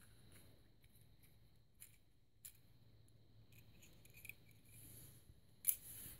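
Faint small clicks and taps of a miniature plastic toy garbage can being handled, its lid flipping open and shut. Near the end, a short louder crinkle of a plastic bag.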